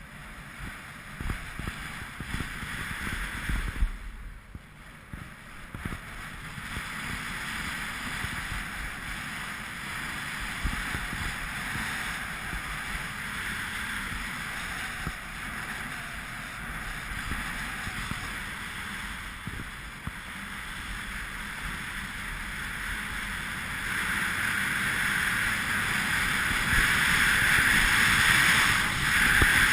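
Skis sliding and scraping over packed snow, with wind buffeting the moving camera's microphone; the hiss grows louder in the last few seconds as speed picks up.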